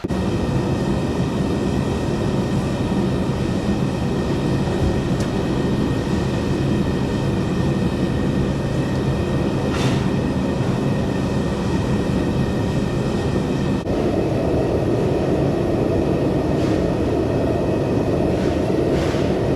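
Forge running with a steady, loud rushing noise as a carbon-steel knife blade is heated for normalizing; the noise shifts in tone about 14 seconds in.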